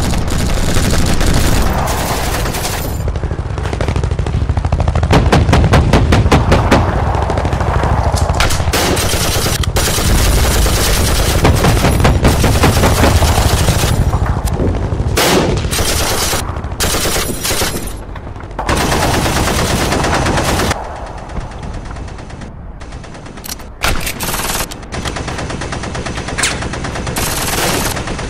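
Gunfire sound effects for a firefight: long rapid bursts of automatic-rifle fire mixed with single shots, thinning out somewhat in the second half.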